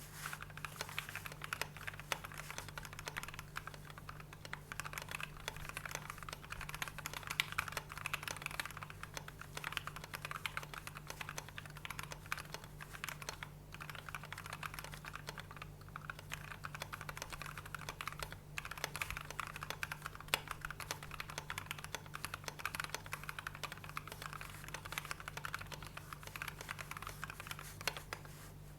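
Typing on a custom KBD67 v2 MKII mechanical keyboard with lubed and filmed Gateron Ink Black linear switches and PBT keycaps: a fast, continuous run of keystrokes with a few brief pauses. The owner says the space bar still has a slight rattle.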